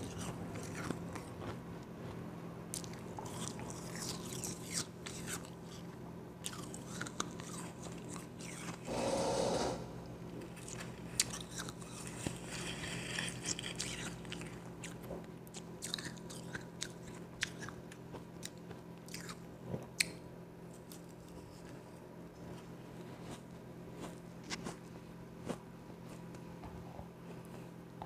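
Close-up crunching and chewing of powdery ice: many small crisp crackles as the soft frost is bitten and chewed. A louder burst of noise lasting about a second comes about nine seconds in.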